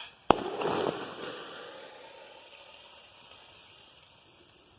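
Molten salt hitting a pan of water and setting off a steam explosion: one sharp bang about a third of a second in. Then a noisy rush of churning water and steam dies down over a couple of seconds to a low steady wash.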